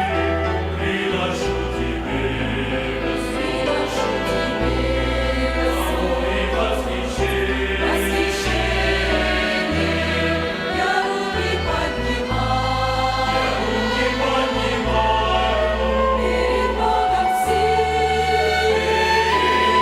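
Church choir singing a hymn in parts, accompanied by a violin ensemble, over a low bass line that changes note every second or two.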